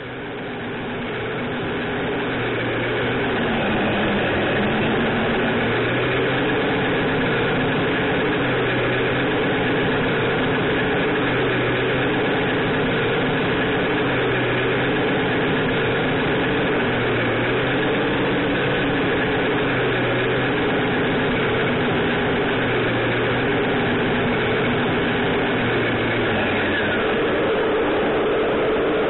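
RC model truck's electronic sound module (Beier USM-RC2) playing a diesel truck engine sound, swelling up over the first few seconds and then running steadily, with a low pulse about every two seconds.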